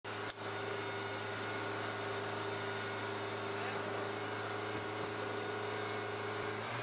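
A steady machine hum with several level tones, with one sharp click about a third of a second in.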